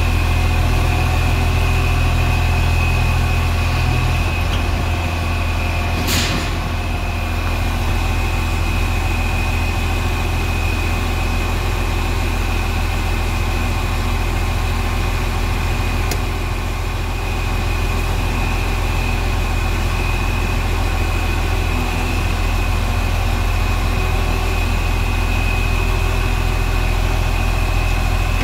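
Case IH 1660 combine's diesel engine running steadily, heard from inside the cab, with a steady high whine over the engine hum while the combine is backed off its unhooked corn head. The engine note shifts about four seconds in, and there is a single sharp click a couple of seconds later.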